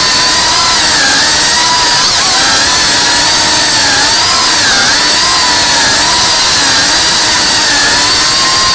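Cinewhoop FPV drone's brushless motors and ducted propellers whining loudly, the pitch rising and falling as the throttle changes.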